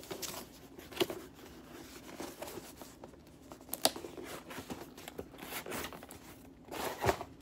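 White cardboard mailer box being handled and pried open: rustling and scraping of cardboard and tape, with sharp snaps of the flaps about a second in, near four seconds and again near the end.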